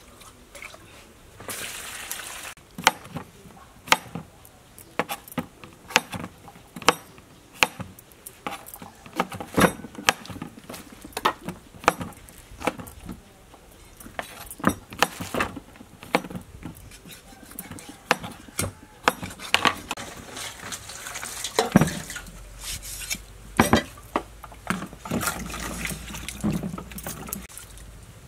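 Meat cleaver chopping through a pig's head on a wooden chopping block: a sharp, irregular chop every second or so. In the second half, water sloshes as vegetables are washed by hand in a plastic bowl.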